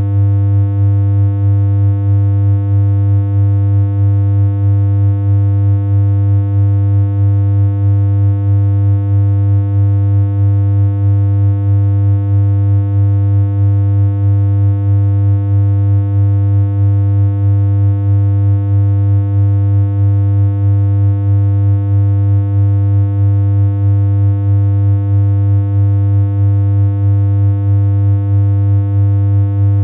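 A synthesized humming tone from the BeepBox chiptune synthesizer holds one low, unchanging pitch with buzzy overtones. Its loudness has a slight regular wobble, a little more than once a second.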